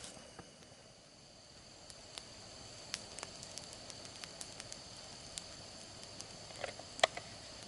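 Campfire crackling with scattered sharp pops, the loudest a few seconds from the end, over a steady high trilling of night insects.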